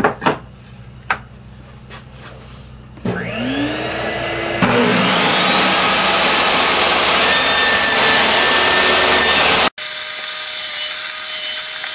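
A few light knocks of wood being handled, then a table saw is switched on and its motor whine rises to speed about three seconds in. A loud, steady rushing noise joins it a second and a half later. After an abrupt edit the saw is heard running with a steady hum.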